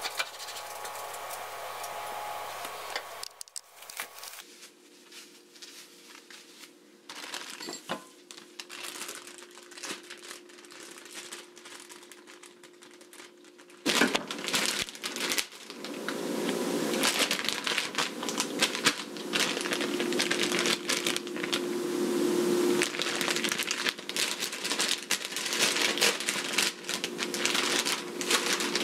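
Knife slicing limes on a cutting board, with scattered light clicks. About halfway in this gives way to a plastic bag of green beans crinkling loudly as it is handled.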